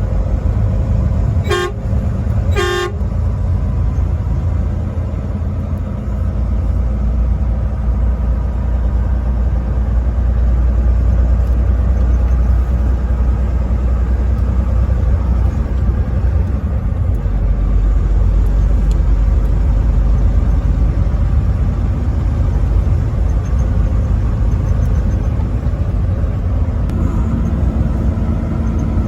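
Truck horn fitted to a vehicle, sounded in two short blasts about a second apart near the start. A steady low vehicle rumble runs on after it.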